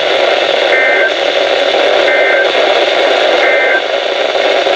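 Weather radio receiver hissing with heavy static, crossed by three short buzzy two-tone data bursts about a second apart. These are the Emergency Alert System (SAME) end-of-message code that closes a warning broadcast.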